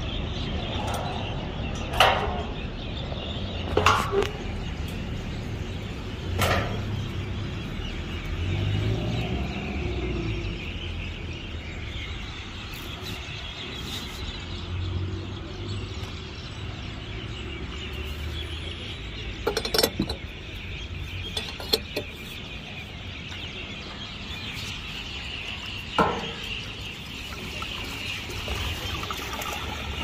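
A few separate sharp knocks and clicks as a fuel filler cap, a funnel and a metal jerry can are handled, over a steady outdoor background with birds chirping.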